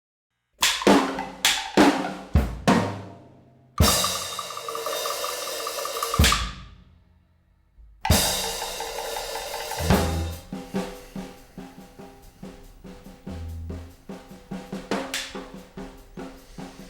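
Drum kit music: a run of separate drum hits, then two cymbal crashes that ring out a few seconds apart, settling into a steady beat with kick drum and hi-hat.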